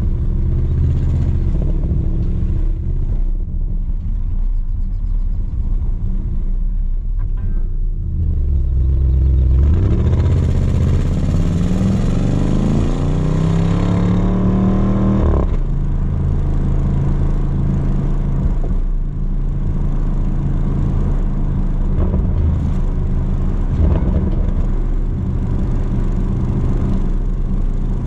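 Audi RS Q8 twin-turbo V8 exhaust with its large resonator deleted, heard at the rear bumper while driving: a steady drone, then about ten seconds in the engine note rises steadily under acceleration for about six seconds and drops sharply, settling back to a steady cruising drone.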